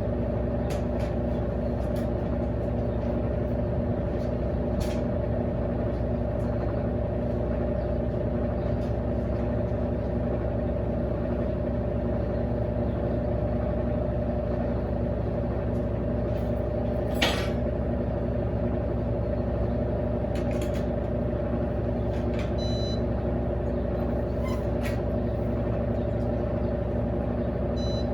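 Top-loading washing machine's motor, a 1/4 hp WEG motor from an Electrolux LT13B fitted to an Electrolux LAC16, running with a steady hum. A single sharp click comes about 17 seconds in.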